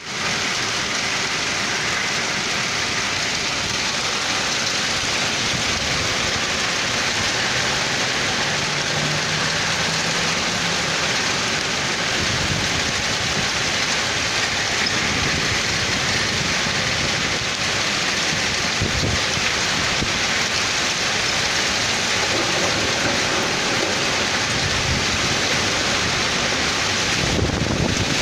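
Heavy rain falling steadily, a dense, even hiss. A faint low hum comes in briefly near the middle.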